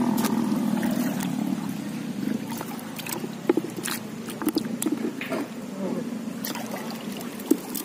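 Shallow water splashing and sloshing as hands work in it, with scattered sharp splashes and knocks, the loudest about three and a half seconds in and just before the end. A low steady hum underneath fades over the first two seconds.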